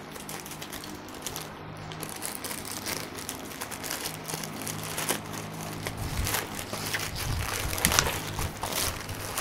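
Black plastic courier mailer bag crinkling as it is cut open with scissors and pulled apart by hand, the crackling growing denser and louder in the second half, with a few dull handling thumps near the end. Faint background music underneath.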